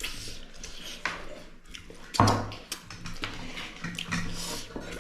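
Eating noises at a meal: wet chewing and food handling with scattered clicks of dishes, and one louder knock about two seconds in.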